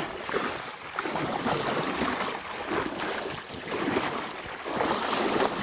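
Feet stomping and wading through shallow stream water and bankside grass, with water sloshing and splashing in uneven surges. This is fish being driven into a hand-held scoop net.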